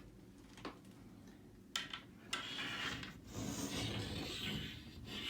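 Nickels clicking and then rubbing and scraping as they are slid along the narrow gap between a closed wooden door and its jamb, a check of the door's uneven gap.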